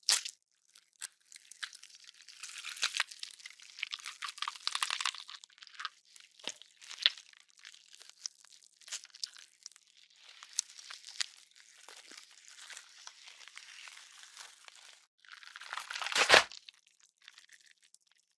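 Horror gore sound effect: wet, crackling flesh tearing and squishing, peppered with sharp snapping clicks like tendons and small bones giving way. About 16 seconds in comes the loudest event, a single heavy, deep bone crunch.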